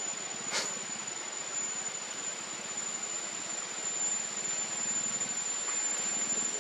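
Steady high-pitched insect drone over an even hiss of forest noise, with one short, sharp squeak about half a second in.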